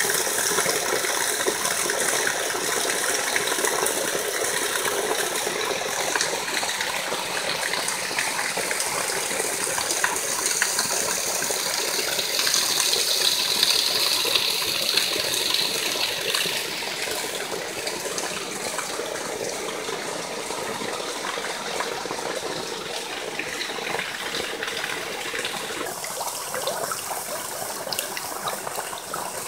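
Small forest waterfall and stream, water splashing and rushing steadily over rocks.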